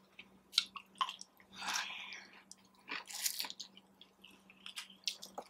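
Close-miked eating sounds: scattered wet mouth clicks and chewing, with two longer, louder stretches of noise about a second and a half and three seconds in.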